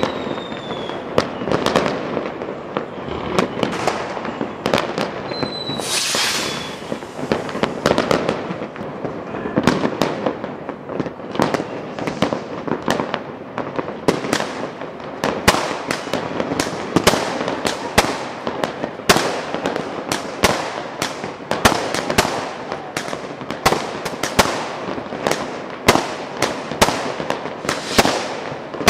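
Fireworks going off all around in a dense, rapid crackle of bangs and pops that never lets up. Short whistles falling in pitch cut through near the start and again about six seconds in.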